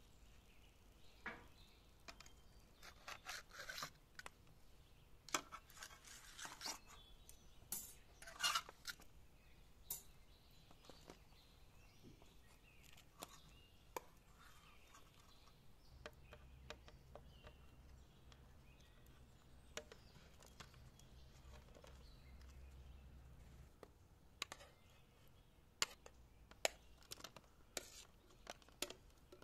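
Quiet kitchen handling of grilled quail: scattered scrapes, clicks and taps of a knife and metal skewers against the birds and a ceramic plate, busiest in the first ten seconds and again near the end.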